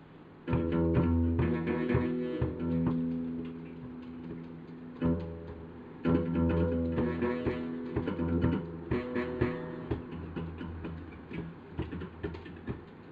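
Acoustic guitar strummed and picked, a tune played in chord phrases: loud chords start about half a second in and again about five and six seconds in, thinning to lighter picked notes near the end.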